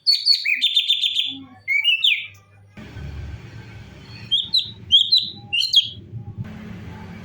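A cucak cungkok sings a fast, rapid trill, then a couple of rising whistled notes. After a steady background hiss and low hum come in, it gives four short, sharp upward chirps about half a second apart.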